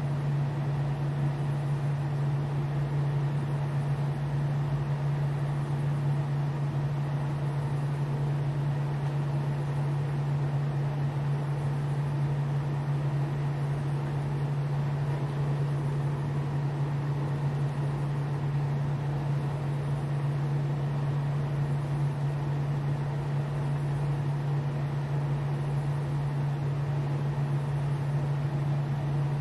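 Steady low hum from the small electric motor of a rotating display turntable, over a light hiss. It stays even throughout.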